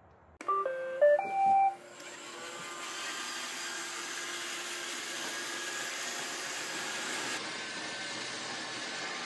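Roomba robot vacuum starting up: a short tune of beeps at stepped pitches, then its vacuum motor and brushes running with a steady whirr.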